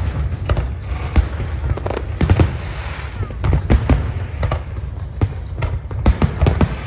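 Fireworks exploding: a fast, irregular string of sharp bangs, several a second, over a continuous low rumble.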